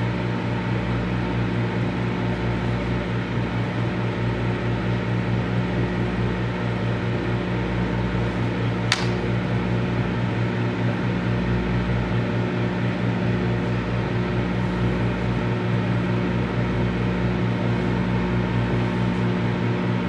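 Microwave oven running: a steady hum with its cooling fan, unchanging throughout. A single sharp click about nine seconds in.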